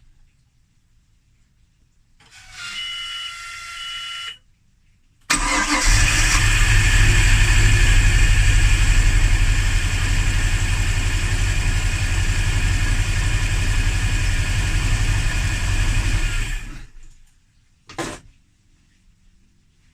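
BMW 325xiT straight-six cranked and started: a brief steady whine at key-on, then the engine starts with a sudden onset about five seconds in and runs steadily for about eleven seconds before it is shut off. It is being tested for hard starting, with fuel pressure found good. A single sharp knock follows near the end.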